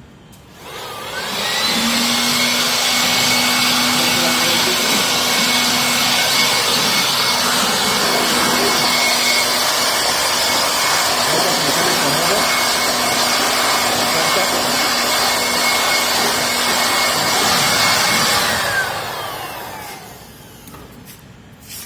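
A handheld electric air-cleaning tool runs at full speed with a loud rush of air over a steady motor whine, spinning up about a second in and winding down near the end as it is switched off, clearing dust from the fan-motor mounting area of an air-conditioner indoor unit.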